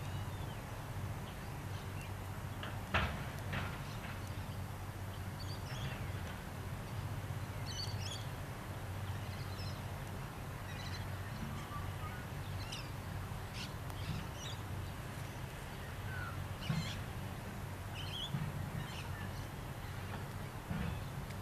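Heavy machine's engine idling steadily, with birds calling and chirping over it and a couple of sharp metallic knocks, the loudest about three seconds in.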